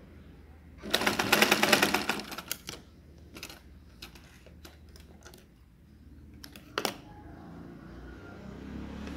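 Domestic sewing machine stitching in a short rapid run of ticks about a second in, lasting a second and a half, then scattered light clicks and a sharp double click near the end as the fabric and machine are handled.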